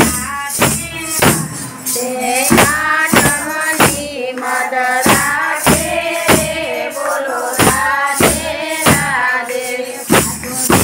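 A group of women singing a Gujarati devotional bhajan together, accompanied by hand claps and small jingle tambourines striking a steady beat about one and a half times a second.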